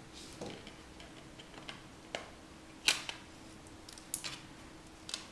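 Sharp plastic clicks and snaps of a Samsung Galaxy Nexus's thin back cover being handled and pressed into place over the battery: about eight or nine separate clicks, the loudest about three seconds in.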